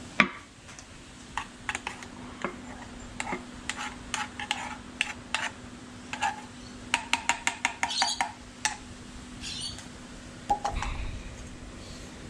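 Metal spoon scraping and tapping mashed potato out of a small saucepan into a ceramic ramekin. Scattered clinks and taps, with a louder knock just after the start, a quick run of taps about seven seconds in, and a dull thump near the end.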